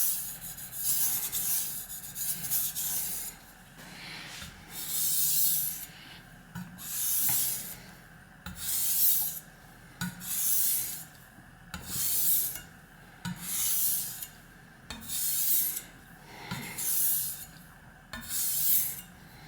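A steel kitchen knife stroked back and forth on the 3000-grit side of a Suehiro SKG-38 combination waterstone. Each pass is a wet, gritty rasp, about a dozen strokes at an even pace of roughly one every second and a half. The soft stone is working up a thick slurry.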